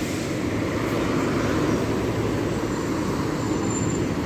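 Diesel engine of a double-decker coach running steadily as the bus moves slowly along the street, with traffic noise around it.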